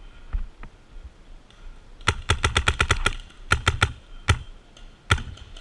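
Paintball markers firing: a rapid string of about ten shots a second for about a second, then a few more shots in short groups and singles.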